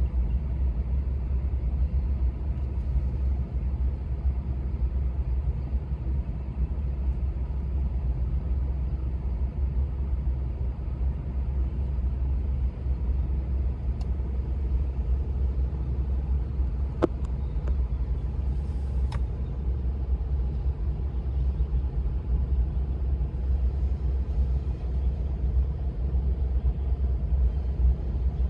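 A CSX mixed freight train rolling slowly through a grade crossing: a steady low rumble of the cars' wheels on the rails, with a few sharp clicks past the middle.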